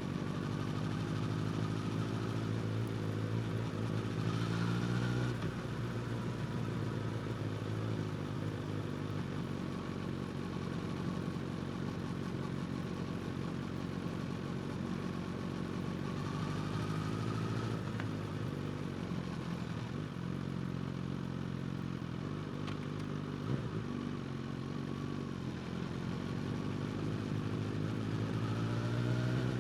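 Suzuki GSX-S1000's inline-four engine with a slip-on exhaust running under way at moderate revs. Its pitch rises as it accelerates about four seconds in, around the middle and again near the end, then settles back between.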